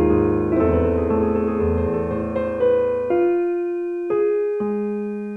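Piano music: a dense passage of chords over low bass notes, thinning about three seconds in to a few single notes that ring out and fade.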